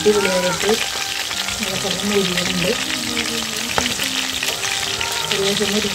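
Chicken drumsticks deep-frying in hot oil in a black iron pan, sizzling steadily with a dense crackle of spitting oil, while a steel spatula stirs and turns the pieces. A single sharp click comes about four seconds in.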